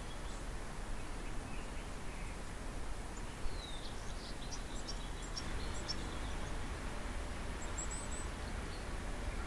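Outdoor ambience: a steady low hush with birds chirping now and then, a cluster of short chirps in the middle and a brief trill near the end.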